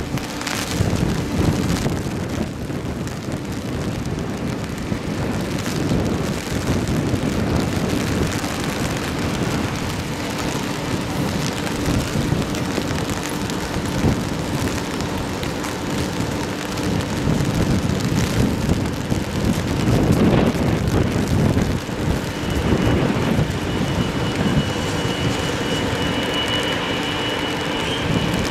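Heavy rain pouring steadily, a dense hiss of downpour. Later in the stretch, a high, steady whine from the Boeing 777's jet engines comes in faintly and grows as the jet taxis toward the camera.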